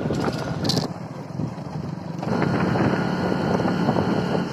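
Motorcycle running along a road with wind buffeting the microphone; it goes quieter for about a second, then picks up again.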